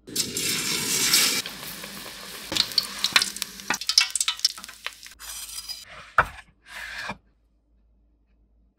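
Batter-coated stuffed green chillies sizzling as they fry in hot oil in a steel wok, loudest in the first second and a half, with sharp clicks and scrapes of a metal slotted skimmer against the wok. It ends in a few short separate noises and a knock about six seconds in.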